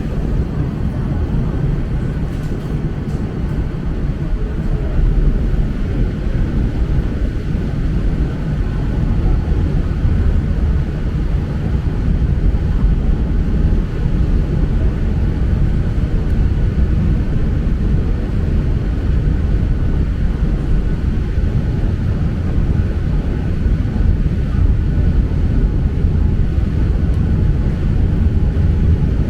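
Hong Kong Peak Tram, a cable-hauled funicular car, running downhill: a steady, heavy low rumble with a faint steady whine above it.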